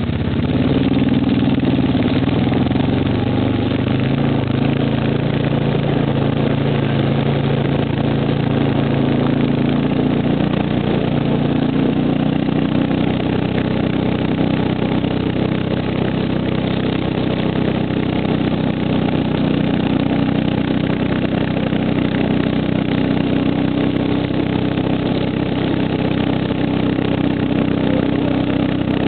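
Engine of a tow vehicle running at a steady pace, heard from on board as it pulls a rider on an air mattress along a gravel road.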